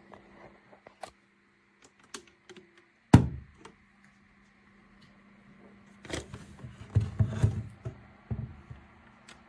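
Scattered knocks and clicks of objects being handled, with one loud thump about three seconds in and a busy run of knocks from about six to nine seconds, over a steady low hum.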